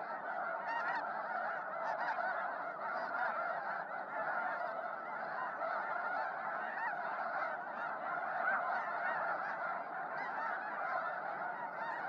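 A large flock of snow geese calling: a dense, continuous chorus of many overlapping honks at a steady level.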